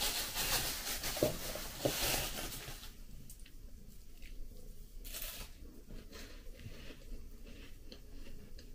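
Thin plastic bag crinkling for about three seconds as a wafer is taken out of it. Then a crisp wafer is bitten with a short crunch, followed by small crunches of chewing.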